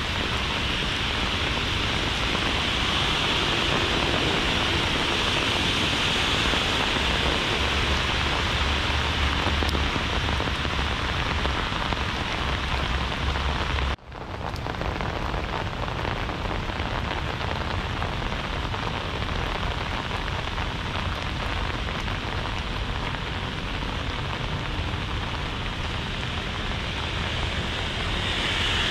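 Heavy rain falling steadily and pattering on hard surfaces, with a low rumble underneath for a few seconds. The sound drops out suddenly for an instant about halfway through, then the rain carries on.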